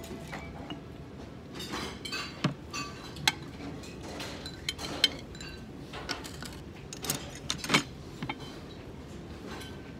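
Chopsticks clicking against a ceramic rice bowl and bowls and dishes set down on a tray: a string of sharp, irregular clinks, the loudest about two and a half, five and seven and a half seconds in.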